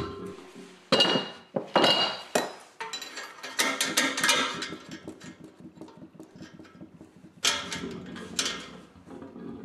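Steel tools clinking and striking against a cast-iron radiator's seized threaded fitting as it is worked to break the seal. Sharp metallic knocks come in clusters from about one to four seconds in, and again at around seven and a half seconds.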